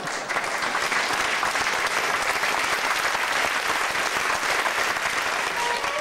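Audience applauding: steady, dense clapping.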